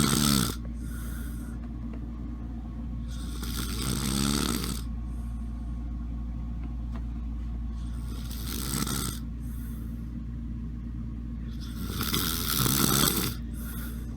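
Snoring, about one rattling snore every four seconds, four in all, with breathy air noise on each.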